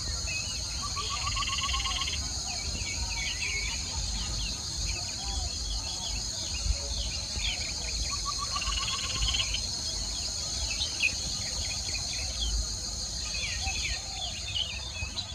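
Outdoor ambience: a steady high insect buzz runs throughout, with birds chirping and trilling over it and a low rumble underneath.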